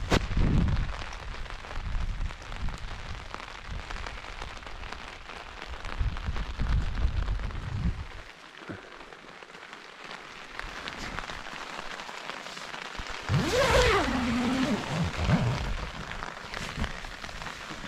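Steady rain hissing down, with wind rumbling on the microphone near the start and again around six to eight seconds in. A short sound that falls in pitch comes about fourteen seconds in.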